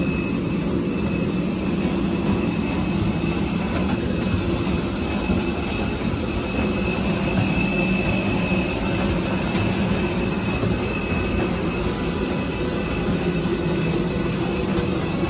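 Steady noise of a jet airliner on the ground: a constant low hum and rush with thin, high whining tones above it, unchanging throughout.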